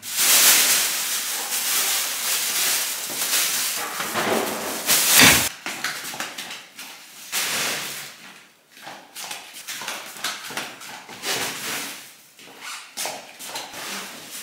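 Mesh sacks and plastic bags of napa cabbages rustling and scraping as they are handled on the floor, with a louder bump about five seconds in.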